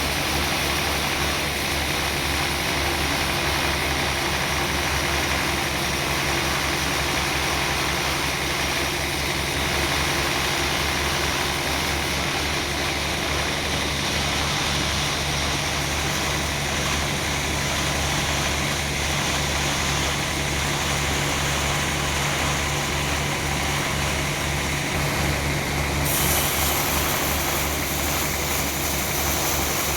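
Sawmill machinery running steadily: a constant engine-like drone with a continuous hiss over it, the high hiss turning brighter near the end.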